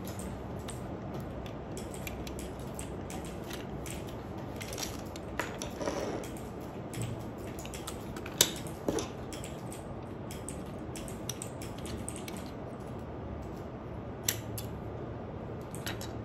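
Small clicks and knocks from a toy model car being taken apart by hand: a small screwdriver working the screws, then the plastic body shell and chassis clicking apart and knocking together. The sharpest click comes about eight seconds in, over steady room noise.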